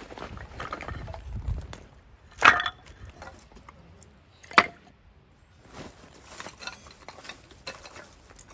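Handling noises with two sharp knocks, about two and a half and four and a half seconds in, and lighter clatter between them.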